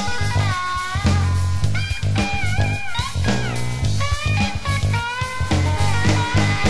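Blues-rock band playing an instrumental break: a lead guitar plays bent notes over a strong bass line and drums.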